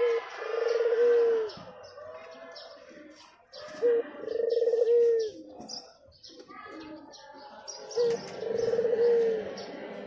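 A male ringneck dove (puter) cooing three times, about four seconds apart. Each call is a short note followed by a longer rolling coo. Small birds chirp faintly in the background.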